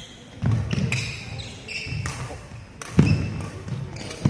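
Badminton rally: sharp racket strikes on the shuttlecock, the loudest about three seconds in, amid players' feet thudding and shoes squeaking on the court floor.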